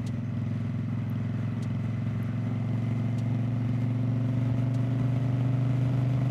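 Indian Scout Bobber's V-twin engine pulling steadily in fourth gear at cruising speed, growing slightly louder as it gains speed.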